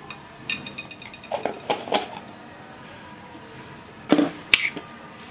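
Metal fork clinking and knocking against a ceramic bowl of grated olives as the mixing starts. There is a short ringing clink about half a second in, and a few sharp, louder knocks about four seconds in.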